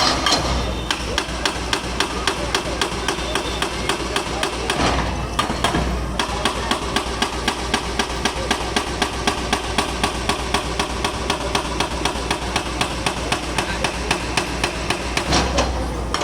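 Hydraulic breaker chiselling into the concrete of a bridge being demolished, hammering in a fast even rhythm of about four blows a second, with a machine engine running low underneath.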